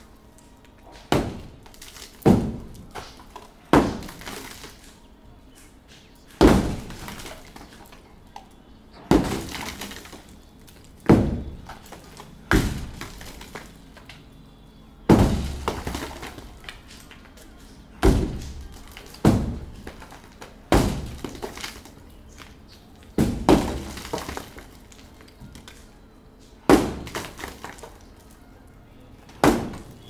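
Sledgehammer blows breaking up a masonry roof slab, about fourteen heavy strikes spaced one to three seconds apart, each followed by a short clatter of cracking and falling debris.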